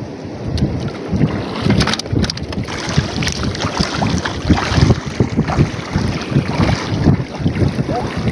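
Strong wind buffeting the microphone in rapid, uneven gusts, over the wash of shallow seawater.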